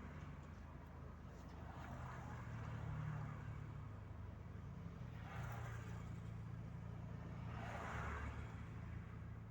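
Chevrolet Corsa Maxx heard from inside the cabin while driving: a steady low engine hum that shifts in pitch a few times, with road noise. Three soft swells of noise rise and fade, about two, five and a half and eight seconds in.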